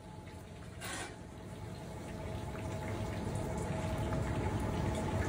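Running water, like a kitchen tap, over a faint steady hum, slowly growing louder, with a single light clink about a second in.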